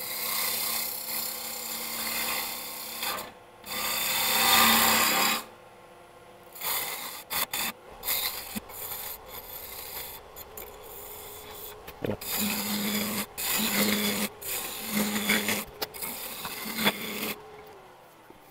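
A turning gouge cutting a spinning wooden blank on a wood lathe, shaving off wood in several passes of a few seconds each with short breaks, the loudest pass about four to five seconds in. The cuts are tapering the head of a wooden mallet.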